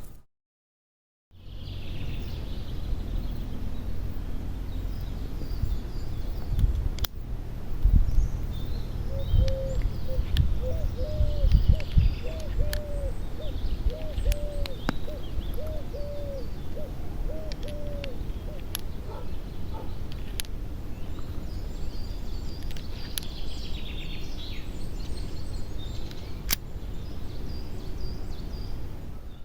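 Outdoor ambience with a low rumble and birds. One bird repeats a short call about a dozen times in a row, while higher chirps come and go. A handful of sharp clicks are spread through it, from the Colt Detective Special revolver being handled and reloaded.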